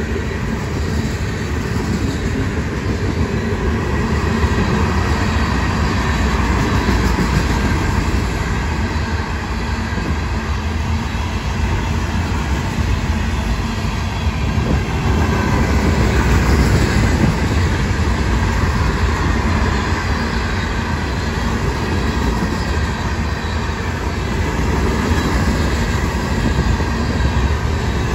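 Freight train cars rolling past at close range: a steady noise of steel wheels running on the rails, heaviest in the low end, with no break.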